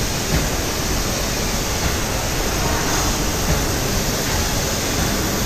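Steady rushing hiss of a gelcoat spray gun laying colour into a boat hull mold, over the spray booth's air handling.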